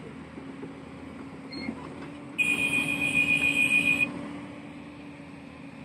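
Heavy diesel machinery engine running steadily, with a loud high-pitched warning tone sounding for about a second and a half just before the middle, then stopping.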